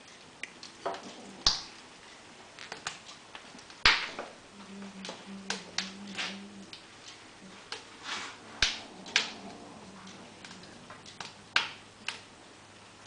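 Wood fire crackling in a cast-iron cooking stove's firebox: sharp, irregular pops and clicks at uneven intervals, a few of them louder.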